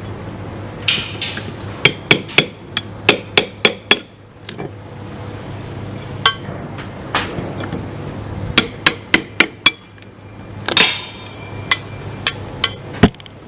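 Hammer blows in quick runs of several sharp strikes, some with a brief ringing, over a steady low hum: work on a roof-leak repair.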